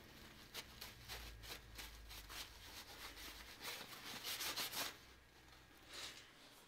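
Paper towel rustling and rubbing as cutting oil is wiped off a freshly threaded steel rod, in soft irregular strokes that are loudest about four seconds in, over a faint low hum.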